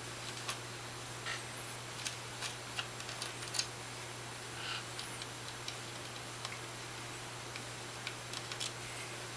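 Scattered light clicks and taps of small metal parts, screws and a hex key being handled while a Starlight Xpress filter wheel is opened up, over a steady low hum.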